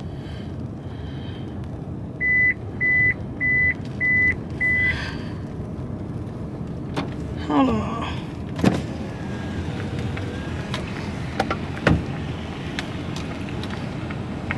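A car's dashboard warning chime beeps five times at one high pitch, about two beeps a second: the low tire pressure warning. A steady low rumble of the car runs underneath, and a few sharp clicks come in the second half.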